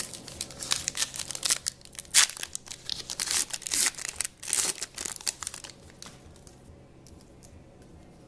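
A football trading card pack's wrapper being torn open and crinkled by hand for about five seconds, then dying down to faint handling noise.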